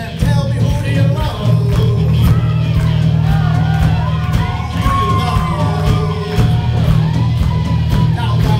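Live rock band with drums and electric guitars playing a 1950s song while a man sings into a microphone, with shouts and whoops over the music.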